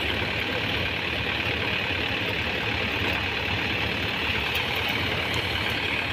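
Tractor-driven groundnut huller (thresher) running steadily: a continuous machine drone with a hissing whir on top and a low engine hum beneath, with no change in speed.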